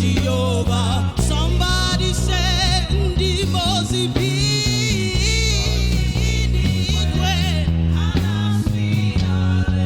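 Live gospel worship music: a band with bass and keyboard chords under sung melody with vibrato.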